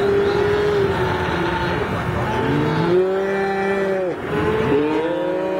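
Calves bawling in a branding pen: several long, overlapping calls, each held steady and then dropping in pitch as it ends.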